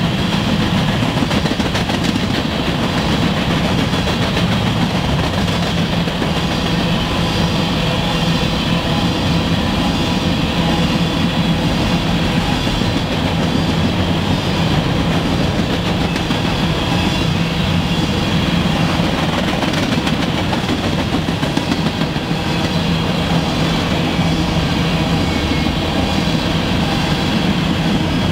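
Freight train of CSX covered hopper cars rolling past, a loud, steady rumble and rattle of steel wheels on the rails.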